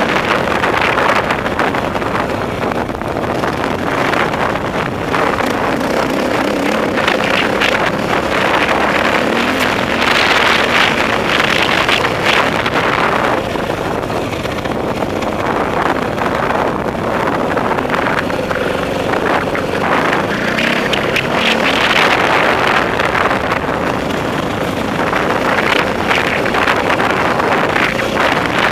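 Dirt bike engine running under way, its pitch wavering with the throttle, with wind buffeting the microphone.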